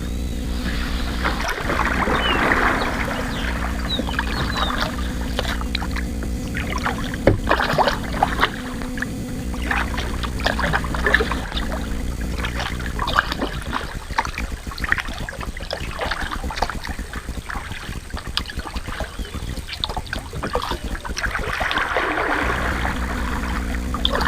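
Kayak being paddled: water splashing and sloshing from the paddle strokes, with frequent small irregular knocks and a steady low rumble underneath.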